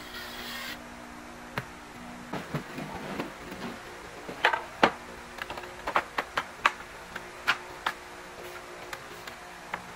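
A cordless drill runs briefly at the start, then loose wooden pallet slats knock and clatter against each other and the concrete floor as they are laid out by hand: a string of sharp separate clacks, loudest about halfway through.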